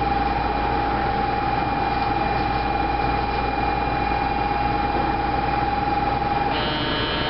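Departure warning buzzer at a New Tram station: one steady high electronic tone held for about six and a half seconds, over the low hum of the stopped train. Near the end the tone cuts off and a higher tone of several notes starts, as the doors are about to close.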